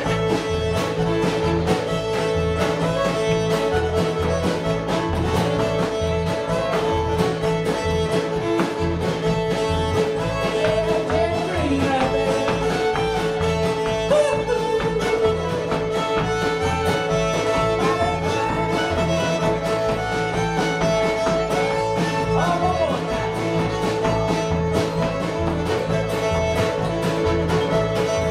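Live bluegrass band playing: fiddle, acoustic guitar and upright bass, with a steady pulse of bass notes under the fiddle melody.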